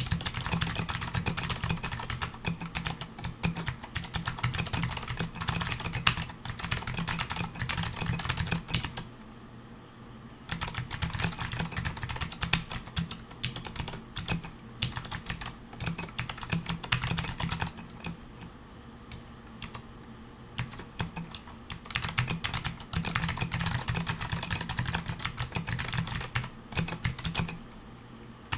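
Typing on a Pearl 40% mechanical keyboard with clicky Amber Alps switches: dense runs of keystroke clicks, with a pause about nine seconds in and a sparser stretch a little past the middle.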